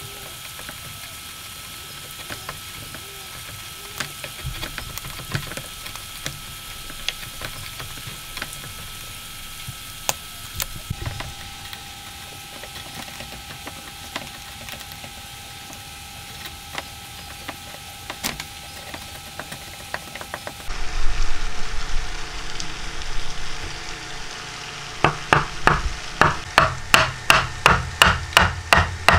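Hand chisel paring hardwood: light scraping with scattered small clicks as shavings come off. Near the end, a wooden mallet knocks the dovetail joint together in quick, even taps, about three a second.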